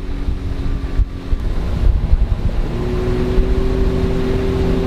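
The 30 hp outboard motor of a small rigid inflatable boat running at low speed, its pitch stepping up a little about three seconds in, with wind buffeting the microphone.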